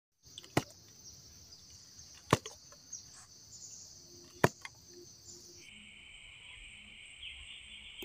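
Steady high-pitched insect buzzing that shifts to a lower-pitched buzz about two-thirds of the way through, with three sharp wooden knocks about two seconds apart that are the loudest sounds.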